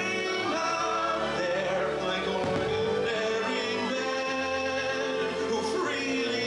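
Orchestral music with singing, the soundtrack of a fireworks show.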